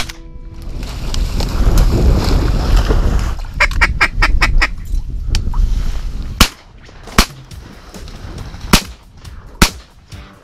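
Duck-hunting shotguns firing: four loud shots in two pairs, the shots in each pair under a second apart, after a rapid run of about seven duck quacks. A rushing noise fills the first few seconds.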